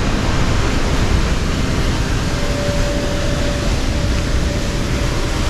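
Steady rushing roar of a river and waterfall, an even wash of noise with no breaks.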